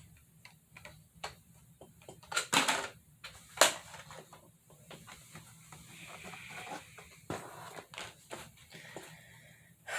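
Scattered clicks, taps and rustles of carded Hot Wheels cars being handled: stiff plastic blister packs and cardboard backing cards knocking and rubbing together. The sharpest, loudest knock comes about three and a half seconds in.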